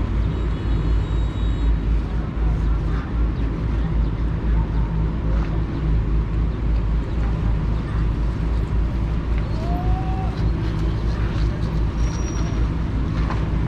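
Ferry engine running steadily with a low drone, with faint voices in the background.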